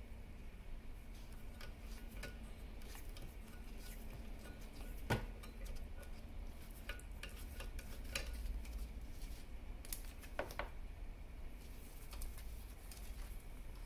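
Handling noises from hand-wrapping black vinyl electrical tape around the end of a wire-harness tube held in a metal jig: scattered light clicks and taps, with a sharper click about five seconds in and another about ten seconds in.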